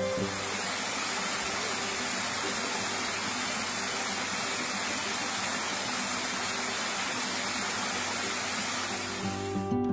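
Waterfall splashing down layered rock ledges into a shallow pool: a steady, even rush of falling water.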